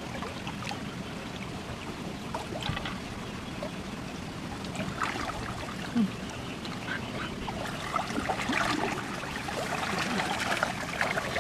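Water sloshing and splashing around a person wading waist-deep through a shallow muddy stream, with small scattered splashes, growing louder near the end as he moves off through the water.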